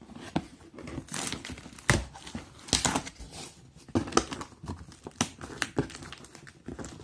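Packaging crinkling and rustling as a boxed 12-inch subwoofer is unpacked, with a few sharper handling knocks.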